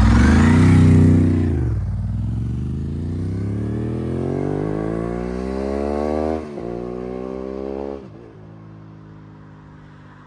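Ducati 748 SP's 90-degree V-twin going by loudly with its pitch dropping, then pulling away with the revs climbing. It shifts up a gear about six seconds in and again about eight seconds in, then fades.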